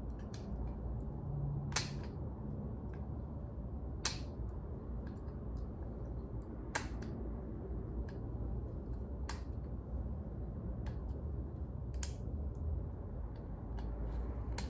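Hand tools clicking and knocking against brake parts while an old pad is worked loose: five sharp clicks about every two and a half seconds with fainter ticks between, over a steady low rumble.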